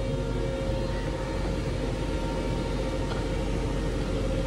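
Elevator car running in its shaft, heard from inside the car: a steady low rumble with a faint steady hum.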